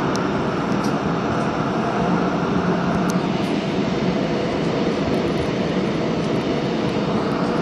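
Busan Metro Line 3 train running on the rails: a steady noise of wheels and rails with a low hum and a few faint clicks.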